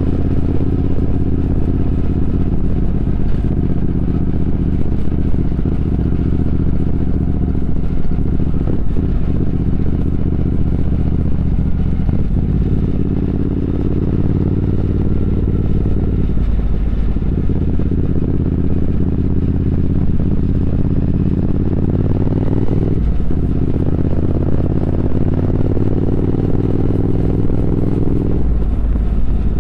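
Triumph Speed Twin 1200's 1200 cc parallel-twin engine running under way, its pitch climbing steadily and then dropping back about four times as the rider shifts up through the gears.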